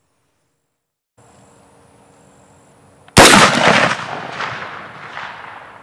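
A single rifle shot from a DRD Tactical M762 takedown rifle, fired about three seconds in: a sharp crack followed by an echo that dies away over about two seconds.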